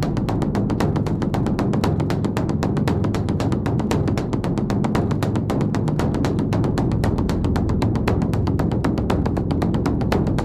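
Beopgo, a large Buddhist temple drum, beaten in a rapid, even roll of stick strokes over a sustained low boom.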